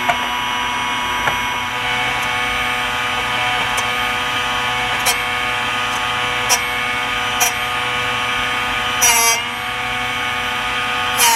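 Drill Doctor XPK drill bit sharpener's electric motor and grinding wheel running with a steady whine. A few sharp clicks come through as the chucked bit is worked in the sharpening port, and two short, louder rasps of grinding come near the end.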